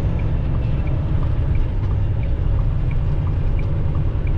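Semi truck's engine and road noise heard from inside the cab: a steady, loud low rumble, with faint ticking about twice a second.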